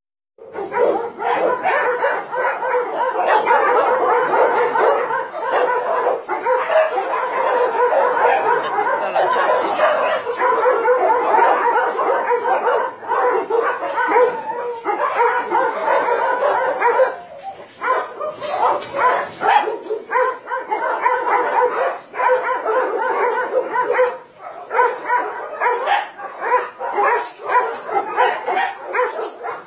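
Many dogs barking and yelping at once in a dense, continuous din of overlapping calls, thinning briefly twice before building up again.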